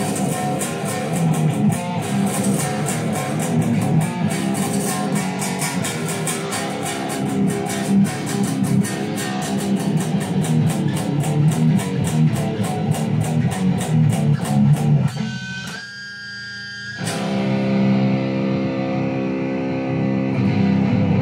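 Distorted electric guitar playing a fast metal riff in rapid, evenly repeated picked strokes. About fifteen seconds in the playing drops away briefly, then a chord is struck and left to ring.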